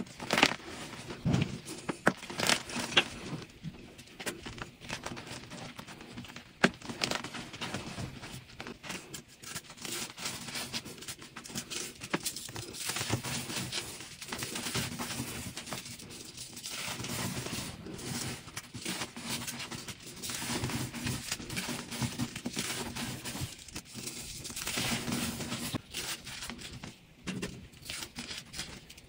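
Pasted gym chalk blocks being crushed and crumbled, a dense run of crunchy crackling with a few sharp snaps in the first few seconds.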